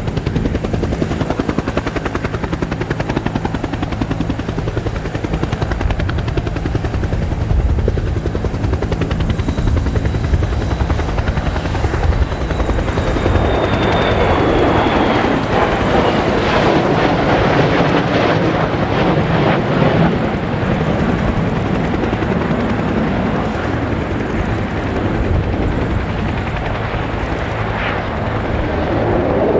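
Two RF-4 Phantom II jets with General Electric J79 turbojets flying past in formation: a continuous deep jet rumble. A high whine falls in pitch about a third of the way in, and the engine noise is loudest about halfway through as they pass closest.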